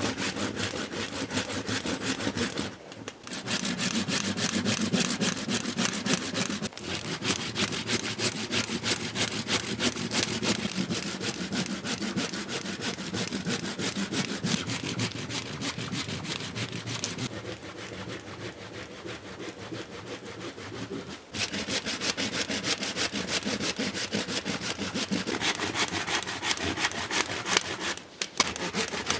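Hand saw cutting dry branches into firewood with fast, even strokes. The cutting breaks off briefly about three seconds in and again near the end, and goes softer for a few seconds in the middle.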